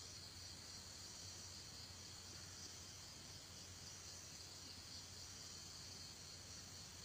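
Near silence with a faint, steady drone of insects.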